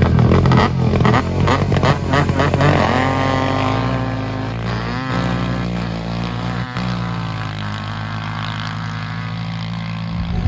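ATV engine revving hard for about three seconds, then running at a steady speed.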